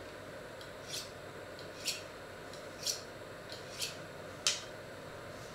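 Kitchen knife being honed on a sharpening steel: short metal-on-metal scraping strokes about once a second, five in all, the last the loudest.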